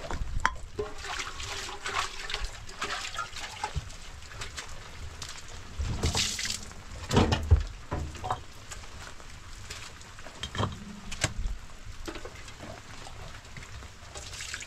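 Water splashing and trickling, with scattered knocks and a few louder thumps about six to seven seconds in and again near eleven seconds.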